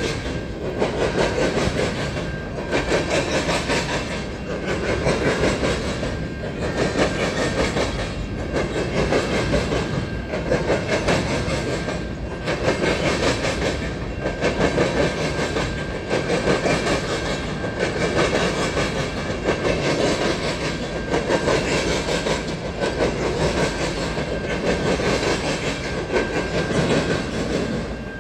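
Freight train cars, covered hoppers and then autoracks, rolling past at a grade crossing. The wheels clack over the rails, and the noise swells and dips about every two seconds as each car goes by.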